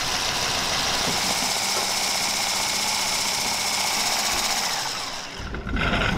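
Electric stand mixer running steadily at high speed, its wire whisk beating a strawberry souffle-pancake batter. The motor noise drops away about five seconds in, followed by a brief louder, low-pitched sound near the end.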